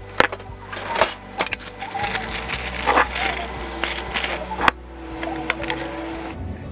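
Irregular clinks and knocks of a fork and a small tuna can against a ceramic bowl and the countertop, as the tuna is drained and put together for a lunch bowl.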